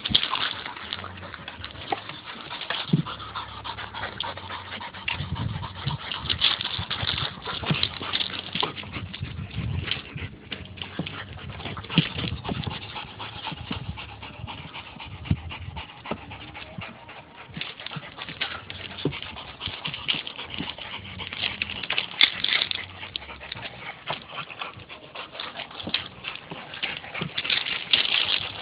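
Adult dog panting steadily while its puppies climb and play on it, with scuffling and many small clicks and crunches throughout.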